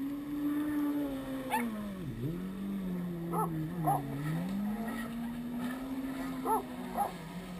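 Jet ski engine running out on the water, its pitch rising and falling with the throttle and dipping sharply about two seconds in. A dog gives short high whines, two together about three and a half seconds in and two more about six and a half seconds in.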